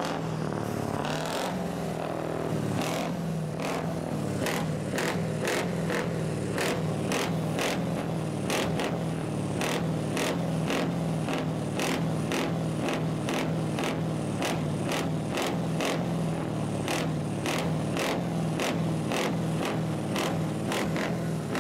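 Scania truck's diesel engine running steadily at low revs, a constant low hum. Over it come sharp crunches, about once a second at first and about twice a second later on.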